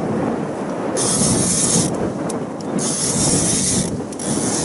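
Fishing reel winding in line under load in hissing spurts about a second long, three times with pauses between, as the angler pumps the rod while fighting a hooked yellowtail (mejiro). A steady low rumble runs underneath.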